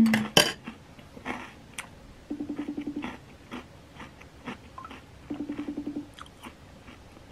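An outgoing phone call ringing unanswered: a short buzzy tone, about three-quarters of a second long, repeating every three seconds. A loud knock comes right at the start, and soft clicks and crunches fall between the tones.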